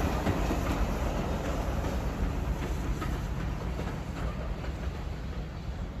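A light-decorated heritage passenger train running along the track, its wheel noise steadily fading as it moves away.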